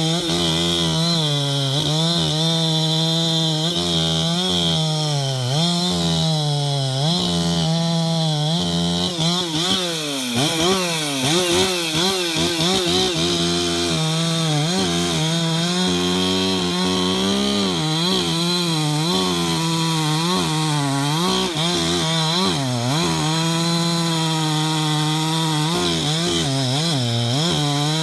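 Husqvarna 372XP two-stroke chainsaw running at high revs through the whole stretch, bucking fir. Its pitch sags and recovers in two spells, about a third of the way in and again in the last third, as the chain bites into the wood.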